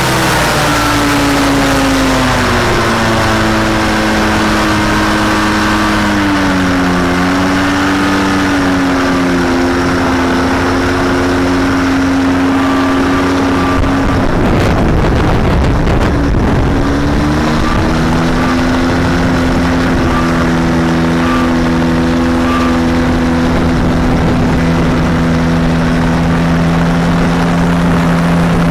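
Rotax 503 two-cylinder two-stroke engine of a Challenger 2 ultralight running on a ground run-up, turning its propeller. Its speed drops over the first couple of seconds, dips briefly a few seconds later, then holds steady; about halfway a rushing noise covers it for around three seconds.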